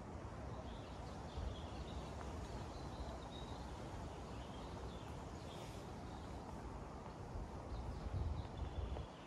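Footsteps walking over dry leaf litter and twigs, with a few faint bird chirps, over a steady low rumble.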